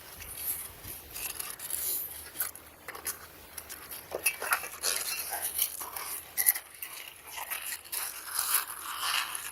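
Irregular scraping with light clicks and knocks, coming in uneven bursts and busier in the second half.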